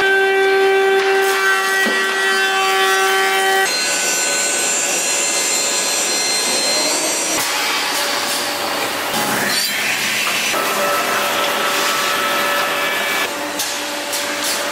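Industrial woodworking machines running and cutting wood: a four-sided planer-moulder, a multi-spindle boring machine and a spindle shaper. Steady motor and cutter whine over the hiss of wood being machined, changing abruptly three times as the sound jumps from one machine to the next.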